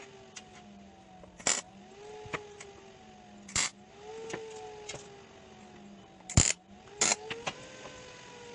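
Sharp metal clanks and knocks every second or two. Between them a small motor whines, rising in pitch and then slowly falling.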